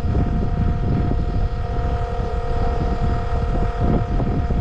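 Battery-powered Milwaukee transfer pump running steadily, a constant motor whine, as it pumps water out of a flooded hole. There is an uneven low rumble underneath.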